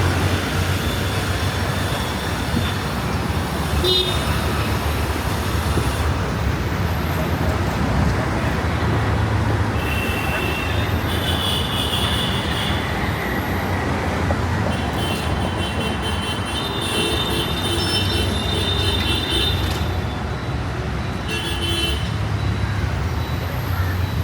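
Busy road traffic with vehicles running past in a steady rumble, and horns tooting several times, including a longer stretch of honking a little past the middle.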